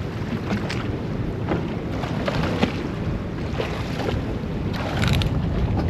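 Wind buffeting the microphone over the low rumble of a boat at sea, with short splashes of water against the hull every second or so.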